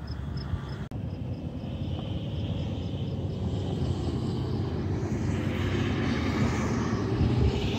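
An engine drone that grows steadily louder over a low rumble.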